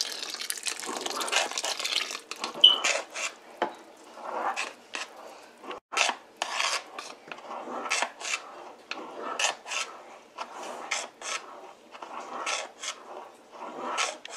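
A long metal spoon stirring thick haleem in a large aluminium pot, scraping against the pot in repeated short strokes, often in pairs. Near the start, raw milk is being poured into the pot.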